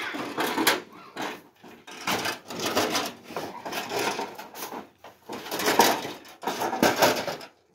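Scraping, rustling clatter in a metal trough as it is worked by hand and goats feed from it, in about five irregular bursts with short pauses between.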